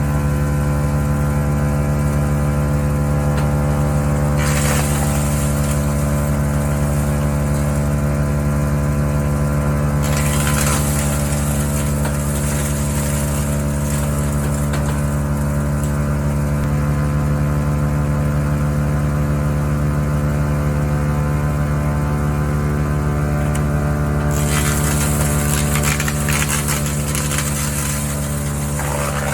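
Barreto 3107C wood chipper's engine running steadily at speed, with stretches of harsher chipping noise as sawmill scraps are fed in: about four seconds in, again around ten seconds, and near the end.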